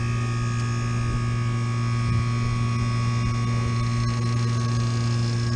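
Steady machine hum with several fixed tones from a running York rooftop HVAC unit, holding even without change.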